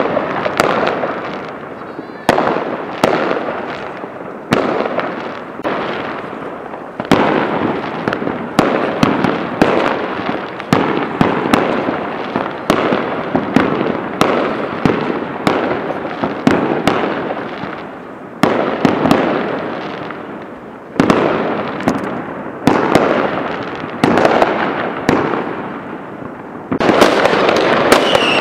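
Aerial fireworks going off in a steady barrage: sharp bangs every second or two, each trailing off in crackle and echo. The bangs grow denser and louder near the end.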